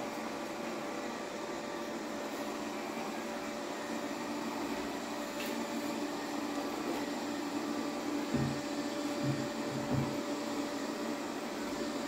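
Xiaomi Mi Robot Vacuum-Mop Essential robot vacuum running with a steady hum as it cleans. A few dull low thumps come about eight to ten seconds in.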